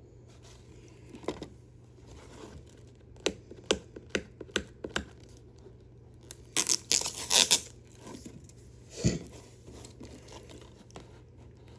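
Handling a DVD case and its plastic wrapping: scattered clicks and taps, a short crinkling tear lasting about a second, a little past the middle, and a single thump about nine seconds in.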